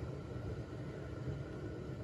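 Steady low hum of the workshop's room tone, with no distinct sounds.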